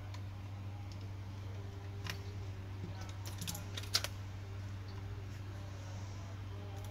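A few small clicks and taps of hand tools and plastic laptop parts as the underside of a Dell Latitude E7440 is worked on, the sharpest about four seconds in, over a steady low hum.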